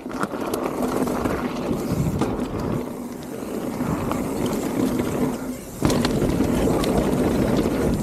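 Mountain bike riding fast down a dirt trail: tyres rolling over dirt and gravel with a steady rushing noise, scattered clicks and knocks from the bike over bumps, getting louder about six seconds in.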